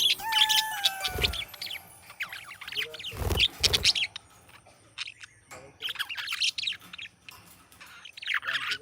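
Budgerigar chirping and warbling in quick bursts of short, high notes, with a falling whistled note near the start. Two brief low bumps come about one and three seconds in.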